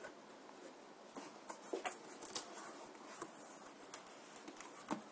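Cardboard packaging being handled and opened: faint rustling with scattered light clicks and taps, about half a dozen over a few seconds.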